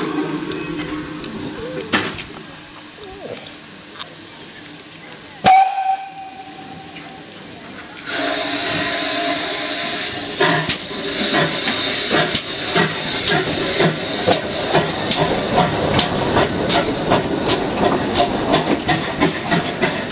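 BR(W) 0-6-0 pannier tank steam locomotive 1638 gives one short whistle blast about five and a half seconds in. A couple of seconds later loud steam hiss starts suddenly as it moves off, joined by a run of exhaust chuffs that come closer together toward the end.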